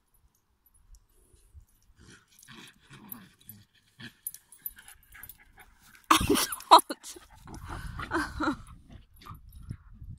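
Dogs playing rough: about six seconds in, a sudden burst of loud, high barks and yelps, with more barking for about two seconds after.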